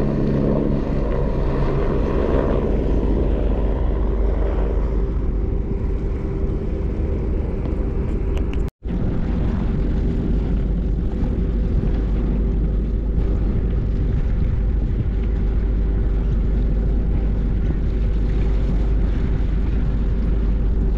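Propeller-driven light aircraft flying low overhead, its engine drone fading away over the first few seconds. After a brief cut, steady wind buffeting the microphone with a faint steady hum underneath.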